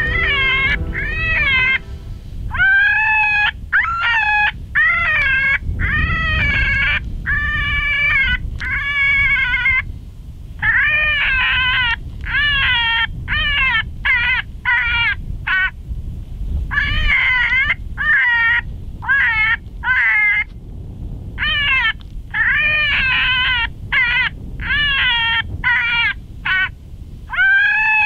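Electronic predator caller playing an animal distress call: a long run of high, wavering, whining cries, each rising and falling in pitch, in bursts with short pauses, meant to lure coyotes in. Wind rumbles on the microphone underneath.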